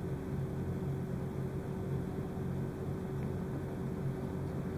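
Steady low electrical or mechanical hum with a faint steady tone above it, over a soft even hiss: room background noise. Nothing stands out over it.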